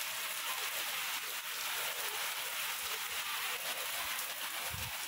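Heavy rain falling steadily, an even hiss of rain on trees and surfaces.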